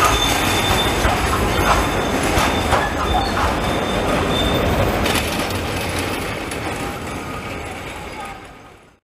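Articulated street tram passing close by, its running noise with a thin, high wheel squeal coming and going over the first few seconds and a few sharp clacks. The sound then fades as the tram moves away and cuts off abruptly near the end.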